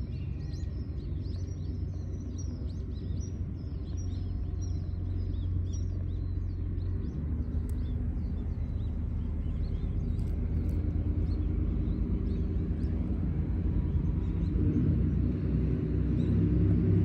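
A domestic cat purring steadily, very close to the microphone, the purr growing louder toward the end; a contented cat's purr. Small birds chirp in the background for the first several seconds.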